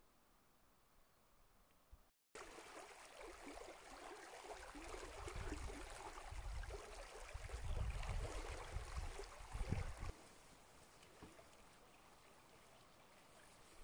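A small brook trickling and gurgling through a sedge bog. It starts suddenly about two seconds in, has bursts of low rumble for several seconds in the middle, then runs on more steadily and quietly.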